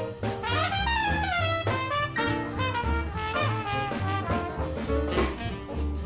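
Up-tempo swing jazz from a band with a brass section, trumpet and trombone riffs over a steady walking bass. A brass phrase slides down about a second in.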